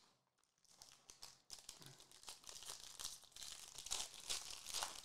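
Foil wrapper of a Prizm basketball card pack being torn open and crinkled by hand, a run of dense crackling rustles that starts about half a second in.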